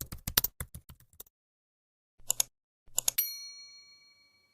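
Rapid keyboard typing clicks that stop about a second in, then a few more clicks and a single bell-like ding that rings on and fades away.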